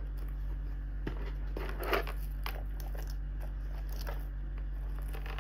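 Hands handling a small quilted leather bag with a metal chain and its packaging: soft rustling of the dust bag and paper, with light clicks, over a steady low hum. There is a louder rustle about two seconds in and a sharp click right at the end.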